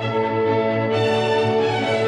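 Background music: held brass-like chords with an orchestral sound.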